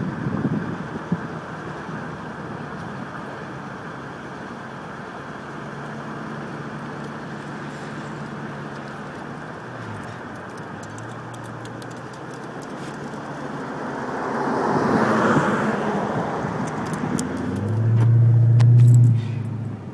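Steady car and traffic noise. A vehicle swells past about three quarters of the way in, and a louder low engine drone comes in near the end and cuts off abruptly.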